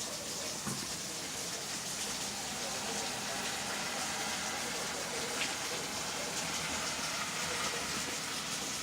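Steady rain falling in a thunderstorm, an even hiss with a couple of faint ticks.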